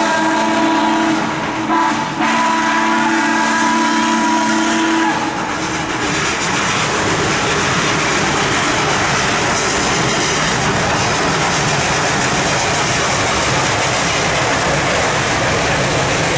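Western Maryland Scenic Railroad 734, a 2-8-0 steam locomotive, sounding a long chime whistle chord that breaks briefly about two seconds in and stops about five seconds in. After that comes the steady noise of the locomotive and its passenger cars crossing a steel truss bridge.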